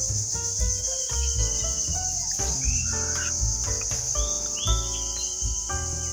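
Background music, a melody of notes changing every fraction of a second over a pulsing bass line, with a steady high-pitched chirring of insects such as crickets.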